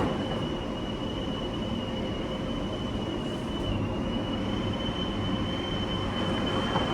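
Coin-laundry machine running: a steady mechanical rumble with a thin, high, steady whine over it.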